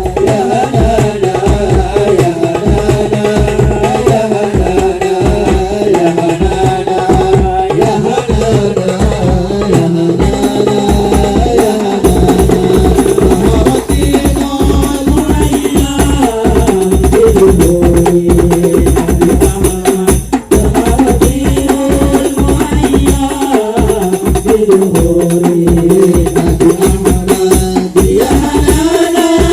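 Hadroh ensemble playing: Indonesian frame drums (rebana) beating a fast, steady rhythm with jingles under a melodic line.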